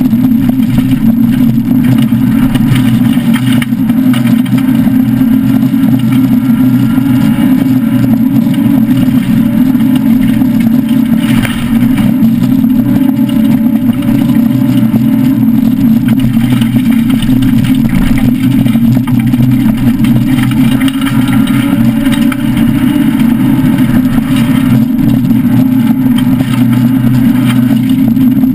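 Citroën SM Bandama rally car's Maserati V6 running hard at a fairly steady high speed, heard loud from inside the stripped cabin.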